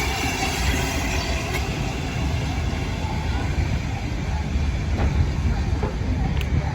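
Peppercorn A1 class steam locomotive Tornado and its train, a steady low rumble with hiss above it and a few faint clicks.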